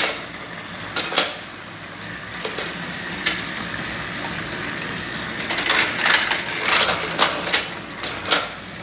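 Several battery-powered Thomas TrackMaster toy engines running on plastic track: a steady motor whir, with sharp plastic clicks and clatters that come thickest over the last few seconds.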